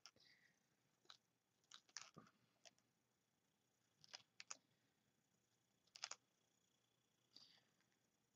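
Near silence, broken by several faint short clicks and ticks spaced a second or two apart.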